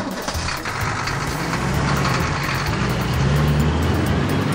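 Heavy truck engine sound effect running, starting abruptly and holding steady with a low hum.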